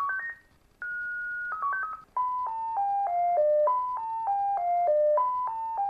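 Short electronic outro tune made of plain beeping tones: quick runs of short notes around a held high note, then a five-note falling figure played three times over.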